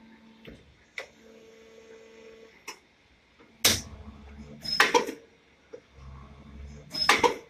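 Plastic injection moulding machine cycling as the mould opens and the ABS part is ejected: a low steady hydraulic hum with a sharp click about a second in, then three loud, brief mechanical clunks with a rush of noise in the second half.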